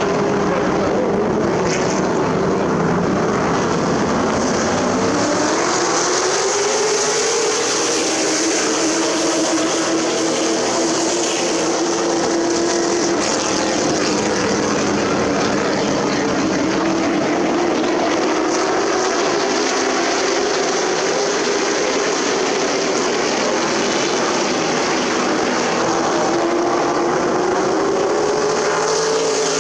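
Super Truck race trucks' engines running on an oval track, a continuous drone whose pitch slowly falls and rises again as the trucks circle.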